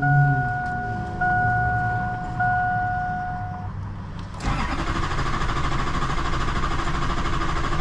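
A GMC diesel truck's dashboard warning chime repeats steadily, then from about halfway in the starter cranks the engine steadily without it catching: a no-start from low fuel rail pressure, traced to a loose fuel filter bleeder screw.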